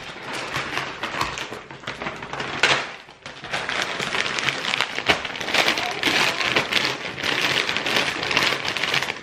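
Plastic bag of frozen stir-fry vegetables crinkling and rustling as it is handled and opened, the frozen pieces shifting inside, with a dip about three seconds in.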